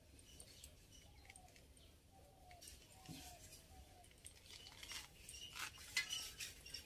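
Faint bird chirps, short repeated calls, with a few soft clicks and scrapes in the second half.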